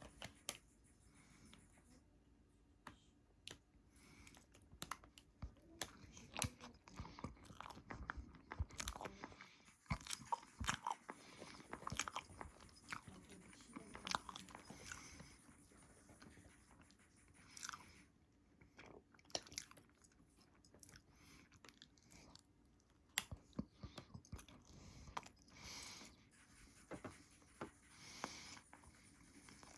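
A person chewing and biting crunchy food close to the microphone: irregular small crunches and mouth clicks, fairly quiet.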